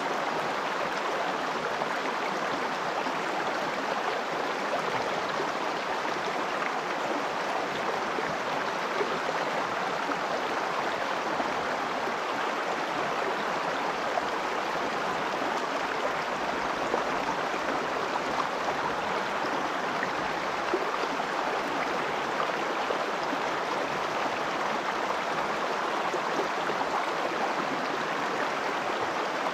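Shallow river water running over stones in a riffle close by: a steady, even rush of flowing water.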